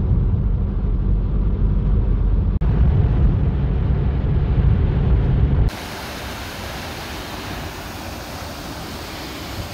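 Car cabin road and engine noise while driving, a heavy low rumble with a brief cut about two and a half seconds in. About five and a half seconds in it gives way abruptly to a quieter, steady rushing hiss.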